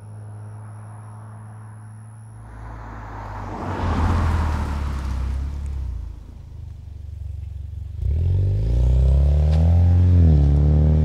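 2018 Mustang EcoBoost's turbocharged 2.3-litre four-cylinder through a COBB V2 cat-back exhaust and 3-inch downpipe. The car goes by with a swelling rush, eases off, then accelerates away with a rising exhaust note. Near the end the pitch drops as the 10-speed automatic shifts up.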